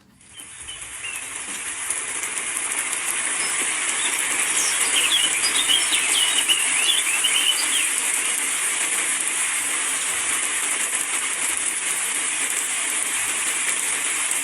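Steady rain hiss with birds chirping over it, a run of quick chirps about a third of the way in and a few scattered ones later. The rain fades in over the first two seconds.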